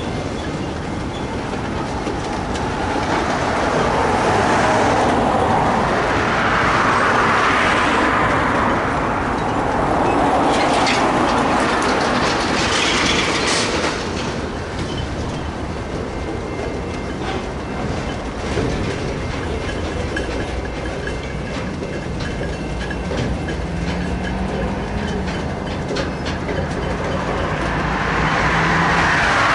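Freight cars of a slow-moving BNSF mixed freight train, boxcars and tank cars, rolling past with steady wheel-on-rail noise. The noise swells now and then, with a road vehicle going by near the end.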